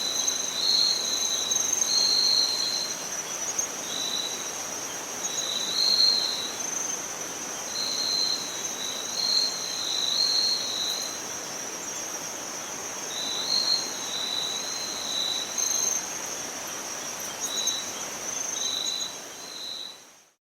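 Night insect ambience: crickets keep up a steady high trill, with a second, lower chirping that comes and goes in short phrases over a light hiss, fading out at the very end.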